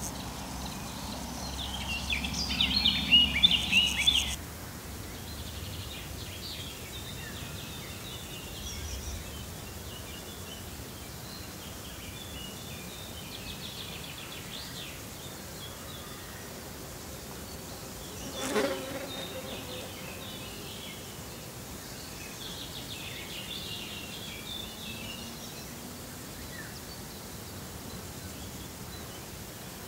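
Summer meadow ambience: insects buzzing, with scattered bird chirps. A louder flurry of chirps comes in the first few seconds, and a single short knock about two-thirds of the way through.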